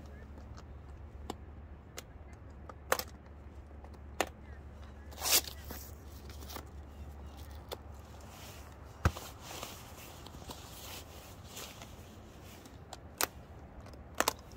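About eight sharp clicks and knocks at irregular intervals over a low steady hum that fades about nine seconds in. The loudest and longest knock comes about five seconds in.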